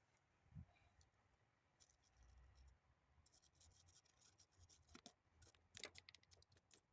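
Faint scratching and scraping of a battery cable terminal being scrubbed clean of corrosion, in scattered strokes that bunch up about five seconds in.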